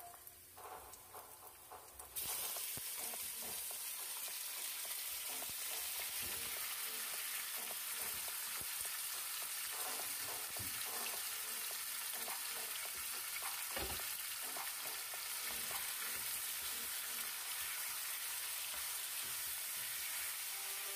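Marinated chicken breast strips frying in hot oil in a nonstick pan. The sizzle starts suddenly about two seconds in as the chicken goes in, then runs steadily with small scraping clicks of stirring and one dull knock about two-thirds through.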